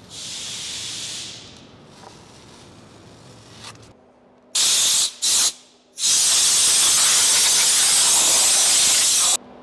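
Masking tape peeled off a car's painted A-pillar with a short tearing hiss, then three loud blasts of compressed air from a blow gun, sharply on and off, the last held about three seconds.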